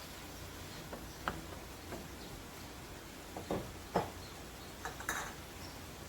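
A cooking utensil knocking and clinking against a pan as a chicken and vegetable stir fry is stirred: about eight short, irregular knocks, the loudest ones around four and five seconds in.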